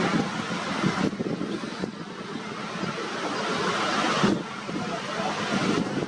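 Wind buffeting the microphone: a loud, gusty rush of noise that jumps up and down in level several times.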